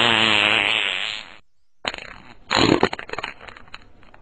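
Fart sound effects: one long, pitched fart lasting about a second and a half, then after a short gap a sputtering, rattling fart that runs for a couple of seconds.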